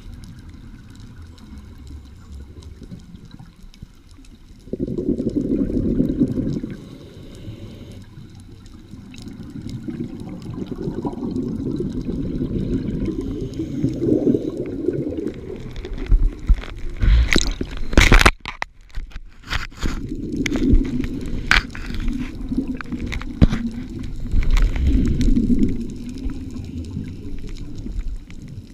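Scuba regulator exhalations recorded underwater: bubbling bursts lasting a few seconds each, several times over, with quieter breaks between them. A cluster of sharp clicks or knocks comes about two-thirds of the way through.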